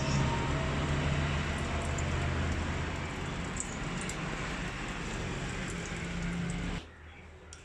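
Diesel draining from an injection pump in a thin stream into a steel tray, a steady trickling splash over a low hum, both cutting off suddenly near the end.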